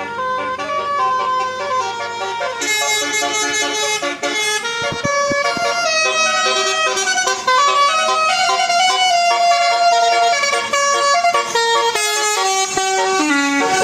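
Bus telolet horn, the multi-tone air horn of an Indonesian bus, playing a tune as a run of stepping notes, getting louder about halfway through.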